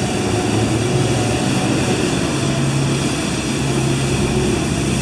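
Street sweeper passing slowly, its engine running with a steady drone over a constant hiss.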